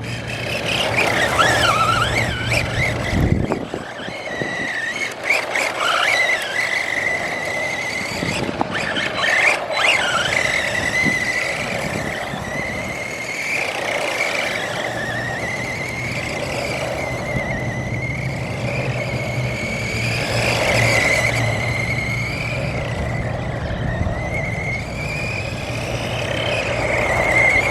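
ARRMA Senton 3S RC truck's electric motor and drivetrain whining as it is driven, the pitch rising and falling with the throttle, with a few brief knocks from the truck bouncing over the ground.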